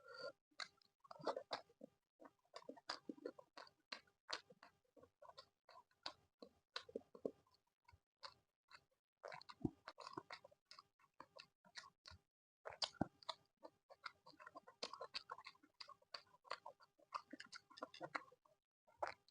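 Close-miked chewing of laddu peethi, fried lentil dumplings with chutney: irregular flurries of wet mouth clicks and small crunches, broken by a couple of short pauses.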